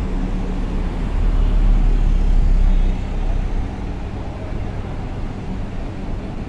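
Steady low outdoor rumble with a faint hum, swelling louder for about two seconds from a second in, then settling back.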